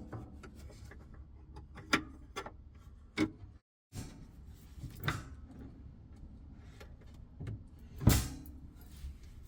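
A handful of separate knocks and clicks from handling small hardware, the loudest near the end, over a low steady hum.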